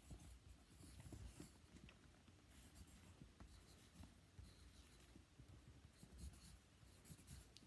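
Near silence with faint, scattered scratching and rustling close to the microphone.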